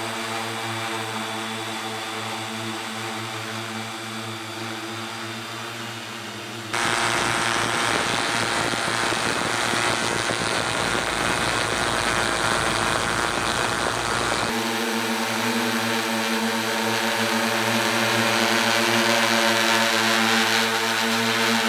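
Tarot T960 hexacopter's six electric motors and propellers hovering with a steady, multi-toned hum. About a third of the way in it cuts abruptly to a louder, rougher rush with a low rumble, and the steady hum returns about two-thirds of the way through.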